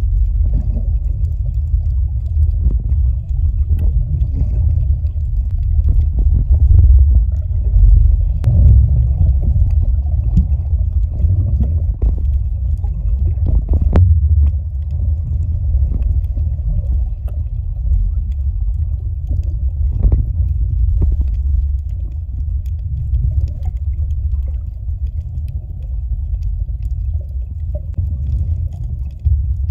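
Muffled low rumble of water moving around a phone microphone held underwater, with a few sharp clicks now and then.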